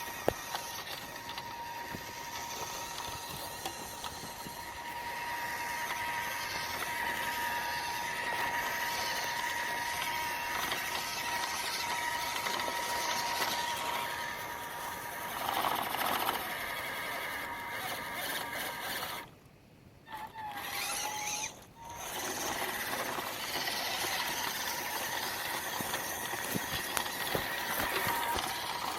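Small electric drive motor and gearbox of a WPL C-series RC pickup truck running with a steady high whine over a rough noise. The sound drops away briefly about two-thirds of the way through.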